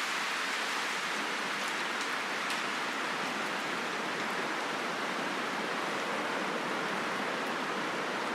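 Steady, even rushing noise outdoors, unbroken and at a constant level, with a few faint high ticks.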